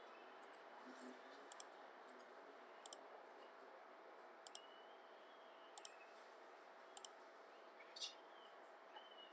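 Computer mouse clicking: about five clicks, each a quick double snap of button press and release, spaced roughly a second and a half apart, over a faint steady hum.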